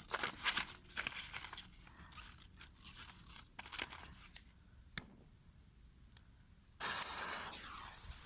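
Irregular crackling and crunching for the first few seconds, then a single sharp pop about five seconds in. Near the end a small firework bursts into a loud, steady hiss.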